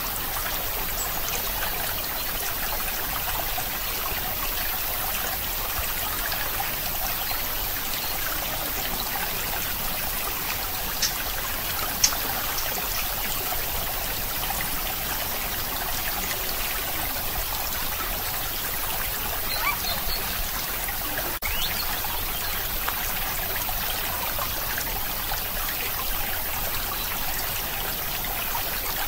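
Steady trickling, rushing noise like running water, with a few faint ticks near the middle.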